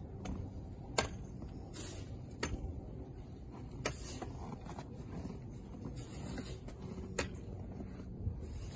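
Snow brush sweeping heavy snow off a car's roof and windows: short hissy swishes of the brush through the snow, with four sharp clicks as the brush strikes the car.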